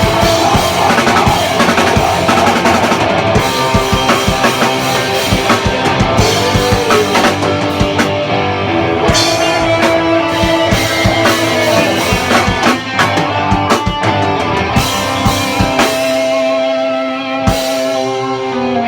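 Rock band playing a song: a drum kit and guitars with held notes over a steady beat. Near the end the drums thin out to a last hit while the held notes ring on.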